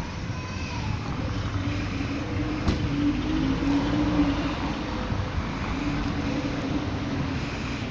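McLaren 720S twin-turbo V8 idling with a steady low hum. A single sharp thud a little under three seconds in matches the dihedral door being shut.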